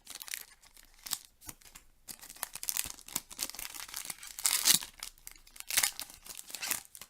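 Foil Pokémon booster pack being torn open and crinkled by hand, in irregular crackling rips with a louder tear about four and a half seconds in.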